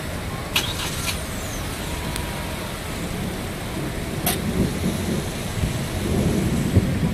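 Cars driving slowly through a flooded street: a steady noise of engines and water around the wheels that grows louder near the end, with a few sharp clicks.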